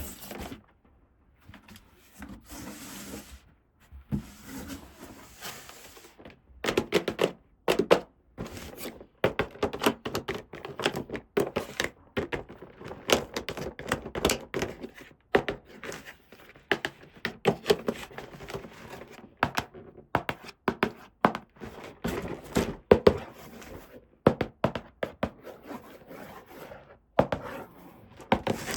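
Small plastic toy pieces being handled. Soft rustling for the first few seconds, then a steady stream of clicks, taps and knocks as the parts are picked up and set down.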